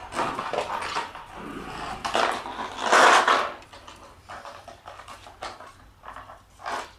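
Shiba Inu puppies at play, tugging a toy between them, with short puppy vocal sounds and scuffling. The loudest burst comes about three seconds in.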